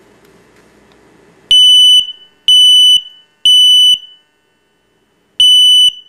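Ionization smoke detector sounding its alarm on test: a loud, high-pitched beep starting about a second and a half in, three beeps about a second apart, a pause, then the next group beginning near the end. This is the temporal-three pattern of a smoke alarm signalling evacuation.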